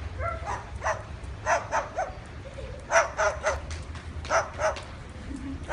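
A pigeon giving short, dog-like barking yaps in groups of two or three, so like a small dog's bark that it is hard to tell which it is.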